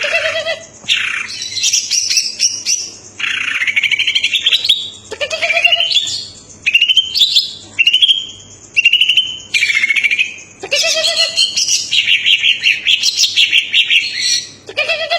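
Cucak ijo (green leafbird) singing loudly and almost without pause. Its song runs in phrases of fast rattling, trilled notes and upward-sweeping whistles, with short breaks between phrases.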